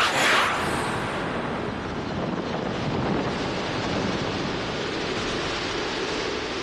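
A sword swish at the very start, then a steady rushing wind sound effect as debris flies during the sword fight.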